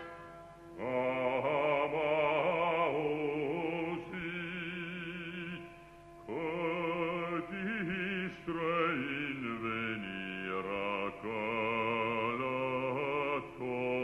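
Operatic voices singing long, chant-like lines with wide vibrato, several parts overlapping, pausing briefly just after the start and again about six seconds in. The recording sounds dull, with no highs above a narrow upper limit.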